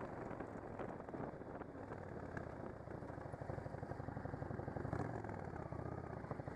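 Motorcycle engine running steadily at low speed, its firing pulses plain.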